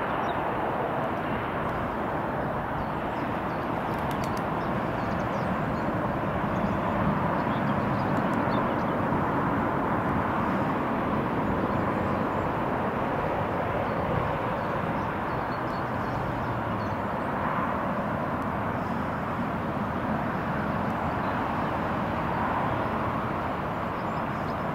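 Jet engines of a distant easyJet Airbus A320-family airliner running as it taxis onto the runway and lines up, heard as a steady, even rush of noise that barely changes in level.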